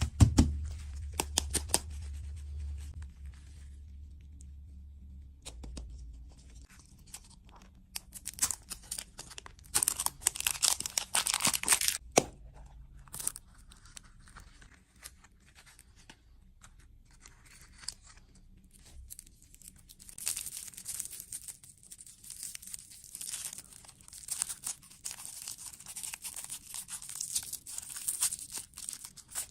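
Surprise-egg wrapping being torn open and crinkled by hand, in crackly bursts around ten seconds in and more continuously through the last third. A low hum is heard in the first few seconds.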